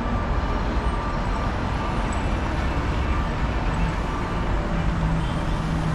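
City street traffic: a steady low rumble of road vehicles, with a low engine hum coming in about four seconds in.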